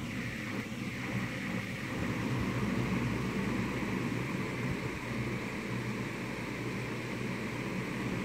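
Steady indoor background noise: a continuous low hum with an even hiss, unchanging throughout.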